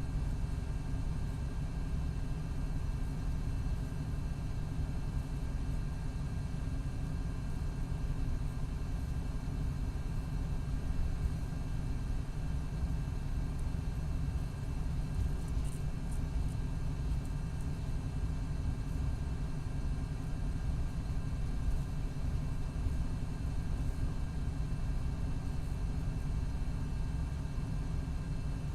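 MCI D4500CT coach with a Cummins ISX12 diesel and Allison B500R transmission, running with a steady low rumble and no clear revving or gear changes. The transmission is in its last stages.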